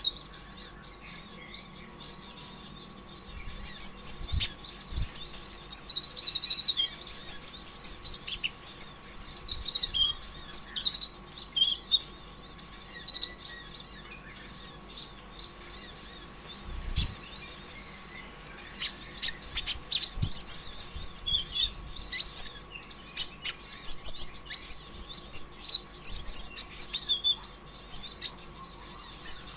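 Kolibri ninja (konin ijoan), a small sunbird, singing a fast, hectic twittering song of high chirps and trills in bursts, with sharp clicks among them.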